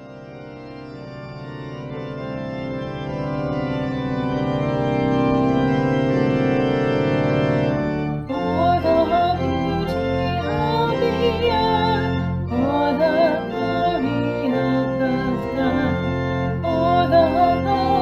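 Organ music: a sustained chord swells for about eight seconds. Then a voice with vibrato begins singing phrases over the organ accompaniment.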